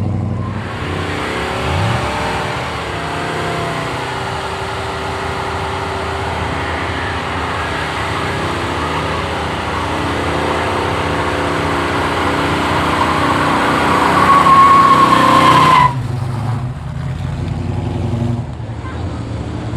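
Car doing a burnout: the engine is held at high revs with the rear tyres spinning and squealing, getting louder with a rising whine before it stops suddenly about sixteen seconds in. After that a lower engine sound carries on.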